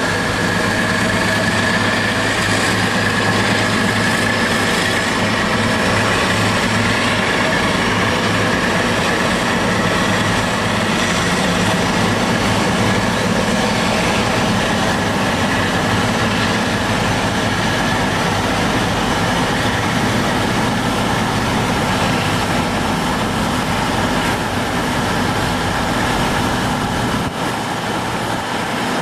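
Class 52 'Western' diesel-hydraulic D1015 Western Champion pulling a train of coaches away, its twin Maybach diesel engines running under load with a steady, loud drone. A high whine rises slightly in pitch over the first dozen seconds.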